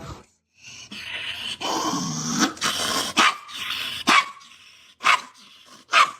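A dog growling and then giving short sharp barks, about one a second.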